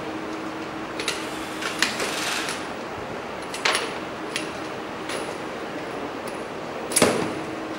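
Hard plastic inspection-camera housings clicking and knocking as they are handled, with a louder knock near the end, over a steady hum.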